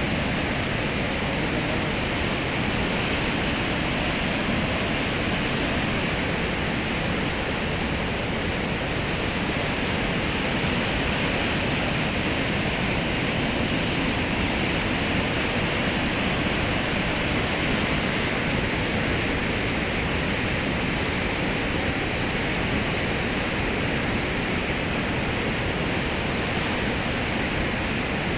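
Floodwater pouring through the open spillway gates of a dam and churning in white spray below: a loud, steady rush of falling water.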